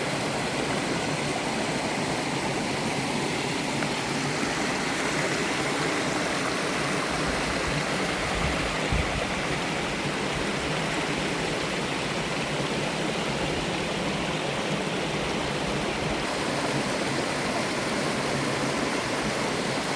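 Mountain-valley waterfall and stream rushing with a steady, even sound, with a short low rumble about nine seconds in.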